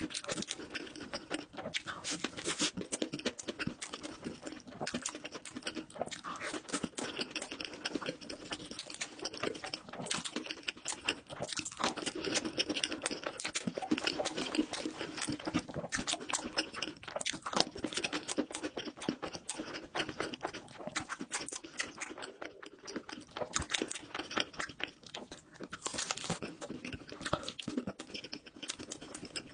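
A person chewing and crunching food close to the microphone: a dense, unbroken run of small crackles and clicks.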